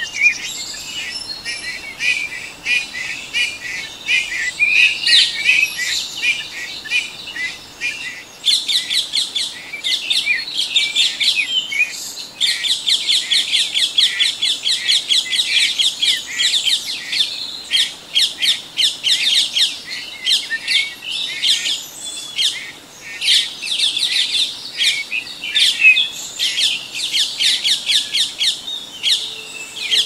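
Small songbirds chirping and twittering, with long runs of short high calls coming several a second.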